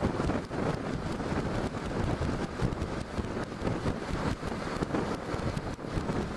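Wind rushing and buffeting over a helmet-mounted camera's microphone while riding a Honda NC700X motorcycle, with the bike's running and road noise underneath.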